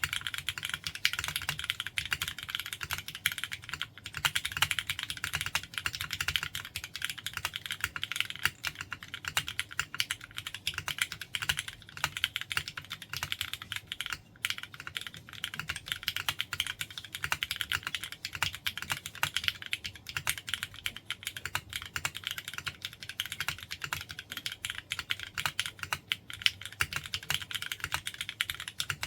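Continuous fast typing on a foamless DK1-TKL mechanical keyboard with a brass bottom, Cherry MX hyperglide black linear switches (spring-swapped to 45 g, filmed) and Cherry-profile ABS double-shot keycaps: a dense, even stream of keystroke clacks with only momentary gaps.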